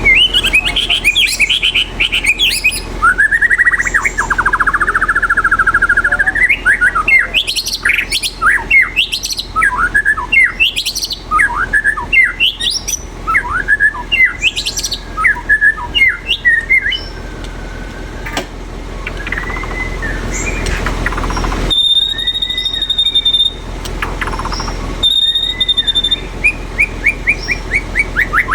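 White-rumped shama (murai batu) singing loudly in varied phrases of whistles, trills and rapid chatters. Past the middle the song thins out, a steady high tone sounds twice, and a fast rattling chatter returns near the end.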